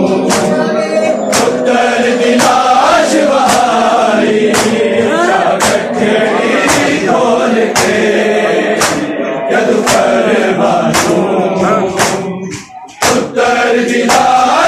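Crowd of men chanting a noha together over matam: hands slapping bare chests in unison, sharp claps about three every two seconds. The chanting and strokes drop out briefly near the end, then resume.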